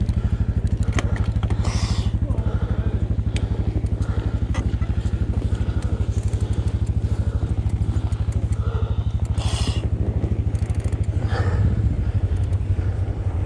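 Polaris RZR side-by-side's engine idling with a steady, rapid, even pulsing, with scattered crunches and clicks of fat-bike tyres on packed snow.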